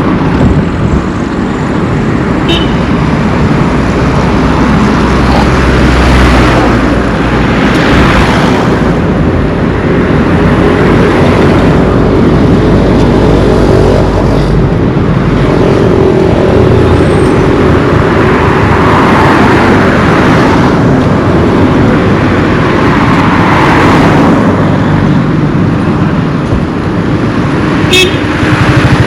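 Road traffic passing close by on a busy highway: engines and tyres going by in a continuous rumble that swells as heavier vehicles pass. A vehicle horn toots at times.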